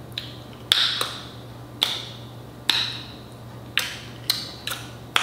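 A series of about eight sharp clicks, irregularly spaced roughly once a second with a few coming closer together near the end, each ringing briefly.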